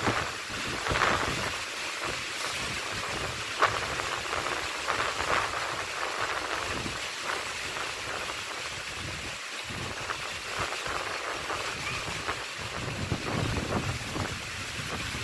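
Strong wind buffeting the microphone in gusts over the steady wash of rough, choppy sea. The gusts swell again near the end.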